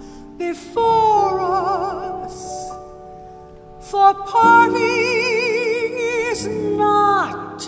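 A woman singing a slow ballad over piano accompaniment, holding two long notes with wide vibrato; the second note starts about four and a half seconds in and ends in a falling slide.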